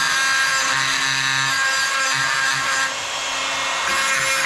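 Handheld power grinder running against the welded cast-iron Model T radiator, a steady high motor whine with a grinding rasp, easing slightly about three seconds in.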